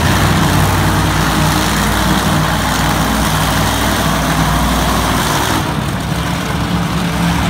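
Monster truck engines running loudly with a deep, steady rumble, easing off slightly about six seconds in.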